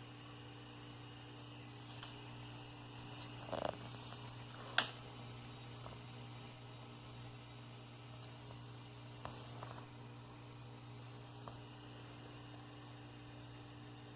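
Harvest Right freeze dryer humming steadily and low after its compressor has cut out, with a few faint clicks and taps; the loudest, a sharp click, comes about five seconds in.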